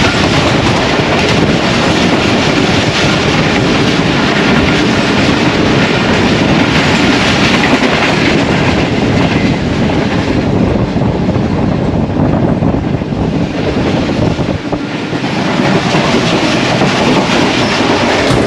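Passenger train running at speed, heard from inside the rear guard's coach: a loud, steady rumble and clatter of wheels on the track.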